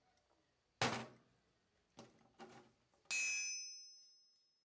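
A single thud, two faint clicks, then a short bright ding whose ringing fades over about a second and a half.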